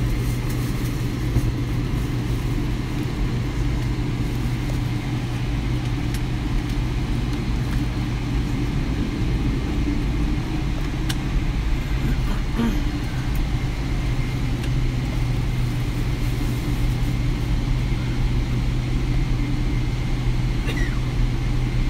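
Steady low drone inside a Boeing 787 Dreamliner's cabin as the airliner taxis with its engines at idle, holding the same level throughout, with a few faint ticks.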